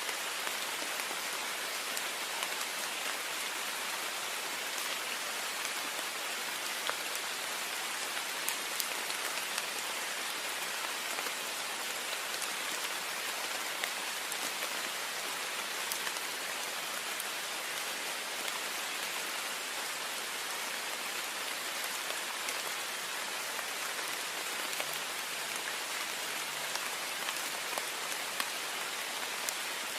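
Heavy rain falling steadily against a window: a constant hiss with many small drop taps scattered through it.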